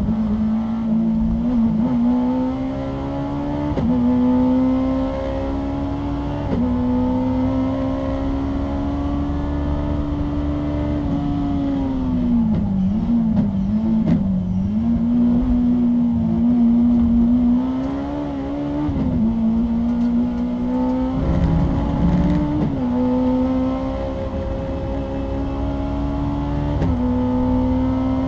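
Honda S2000's 2-litre four-cylinder engine heard from inside the cockpit, running hard under race acceleration. Its pitch climbs through each gear and falls sharply at every upshift, with a wavering dip around the middle as the car brakes and downshifts for a corner.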